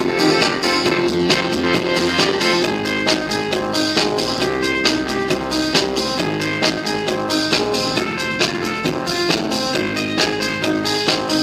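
Music with a steady drum beat played from a phone through a PAM8403 mini amplifier module into a small oval speaker: a volume and bass test of the DIY amplifier.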